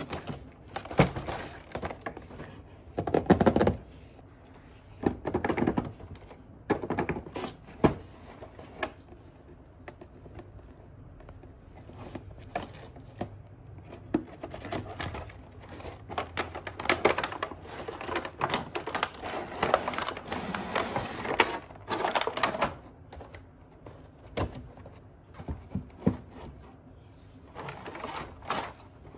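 A cardboard toy box and its plastic insert tray being handled and opened by hand: irregular taps and clicks mixed with scraping and rubbing noises, heaviest around the middle.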